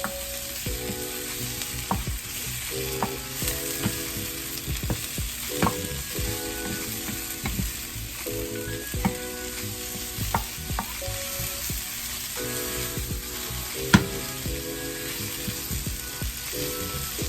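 Onions and fresh spinach sizzling in a little sesame oil in a pan, with a utensil clicking and scraping against the pan as it is stirred; one sharper knock about fourteen seconds in.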